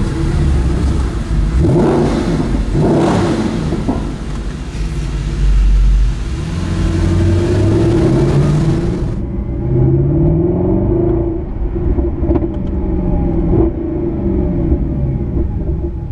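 Mercedes-Benz SLS AMG's 6.2-litre V8 heard from inside the cabin, accelerating and easing off, its pitch climbing and falling several times through the gears. About nine seconds in the sound turns duller.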